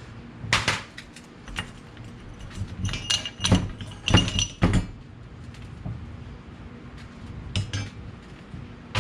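Metal tools and parts clinking and knocking: a run of sharp clanks, several with a brief metallic ring, bunched in the middle and again near the end.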